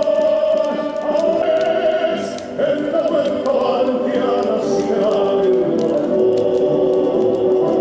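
Music with a choir singing long held notes.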